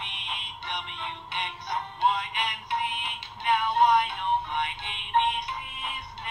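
A Fisher-Price Thomas & Friends ABC Train toy playing a sung electronic song through its small built-in speaker. The sound is thin, with almost no bass.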